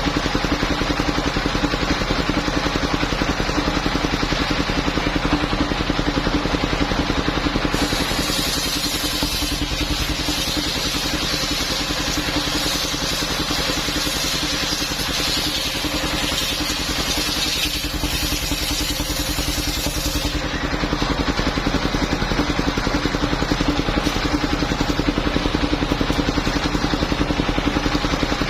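Engine-driven portable circular sawmill running steadily; from about eight seconds in, the blade cuts through a coconut palm trunk with a dense high-pitched hiss for about twelve seconds, then the saw runs free again.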